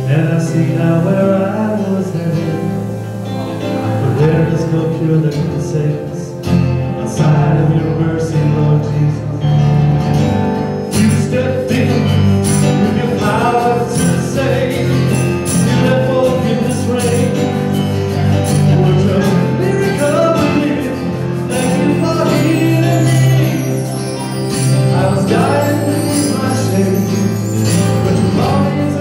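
Live worship band music: keyboard and acoustic guitar accompaniment with singing.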